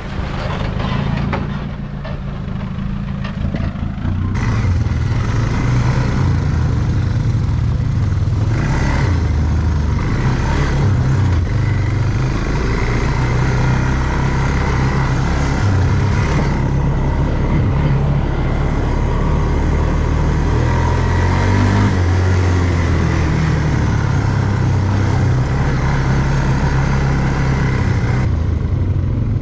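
An off-road vehicle's engine running while driving a trail, louder from about four seconds in and then holding fairly steady, its pitch shifting a little with the throttle.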